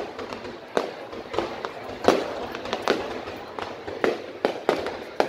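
Aerial fireworks exploding in an irregular volley of sharp bangs, about two loud reports a second with smaller crackling pops between them.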